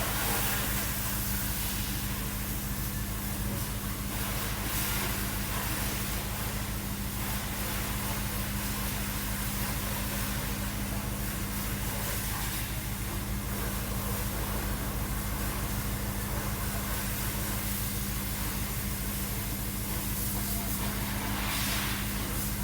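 BMW engine idling steadily, a constant low hum with a fast even pulse under a hiss. The car's fault scan reports code 140010, combustion misfires.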